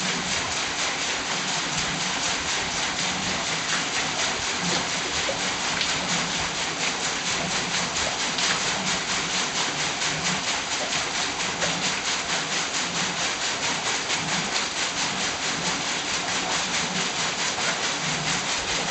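Overshot water wheel turning, water pouring from the chute into its buckets and splashing down off the wheel in a steady rush. A low pulse comes round about once a second as the wheel turns.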